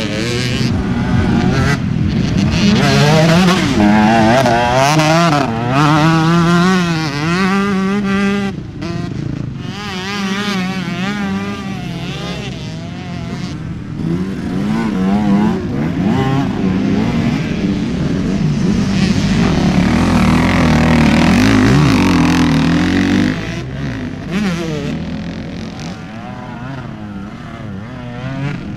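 Motocross bike engines revving hard and unevenly in deep mud, the pitch climbing and falling with the throttle as the rear wheels spin.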